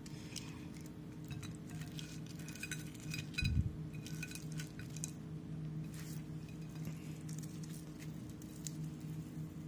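Hands handling and tearing apart a fried, beer-battered cod fillet on a ceramic plate: faint scattered clicks and small clinks against the plate, with one dull bump about three and a half seconds in, over a steady low hum.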